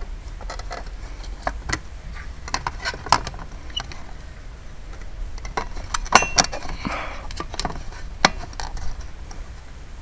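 Irregular clicks, taps and rattles of an air conditioner's electrical disconnect box cover being handled and fitted back onto its box, over a low steady rumble.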